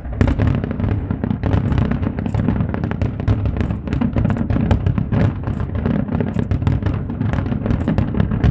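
Fireworks display in a dense, rapid barrage: many sharp bangs and crackles a second, over a heavy low rumble of booming shell bursts.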